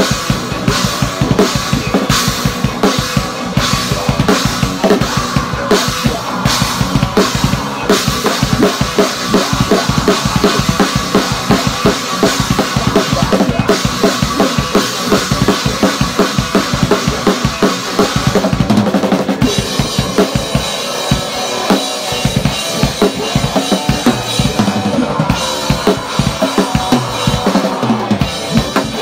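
Drum kit played fast, heard close up from the drummer's seat: rapid, dense bass drum, snare and cymbal strokes.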